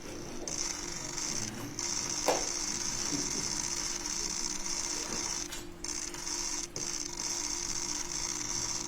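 Many press cameras' shutters firing in rapid bursts, merging into a continuous mechanical chatter that pauses briefly a few times.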